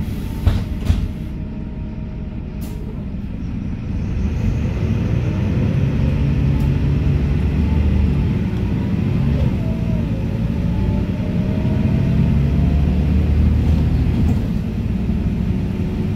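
A MAN NL223 city bus's MAN D0826 six-cylinder diesel and ZF 5HP-500 automatic gearbox, heard from inside the bus as it drives and accelerates. The engine rumble grows louder about four seconds in, a faint rising gearbox whine follows, and the sound eases briefly near the end. Two sharp knocks come about half a second and a second in.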